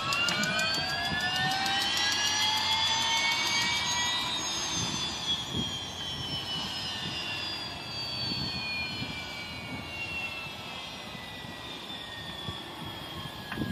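Sheriff's helicopter turbine engine spooling up on the ground: a rising whine with fast, even ticking at first, typical of a turbine start with the igniter firing. The ticking stops about two seconds in, and the whine peaks about four seconds in, then eases slowly lower.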